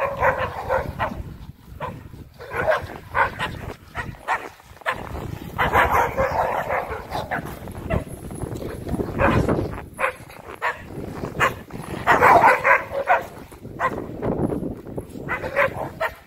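American XL bully dogs barking and yipping in short bouts, a cluster of barks every few seconds.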